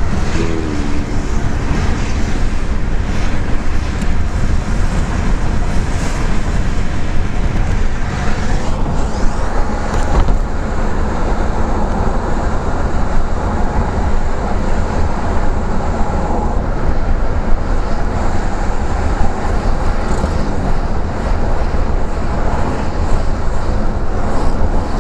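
Steady road and engine noise heard from inside the cabin of a moving 1983 Buick LeSabre, with a strong low rumble.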